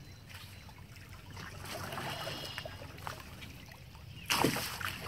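Water sloshing and trickling off a small plastic kids' paddle boat as it is lifted and tipped on its side at the water's edge, with one loud splash about four seconds in.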